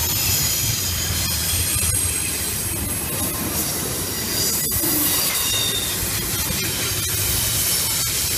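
A passing train: a steady low rumble of wheels on rail, with high-pitched steel wheel flange squeal over it that is strongest in the first half.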